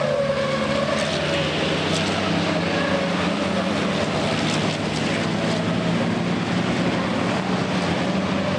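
Several racing trucks' diesel engines running hard at speed, a steady dense engine sound with a slightly wavering pitch.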